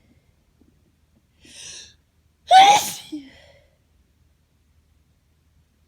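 A person takes a short, audible in-breath, then sneezes once, loudly, about two and a half seconds in. It is an allergy sneeze.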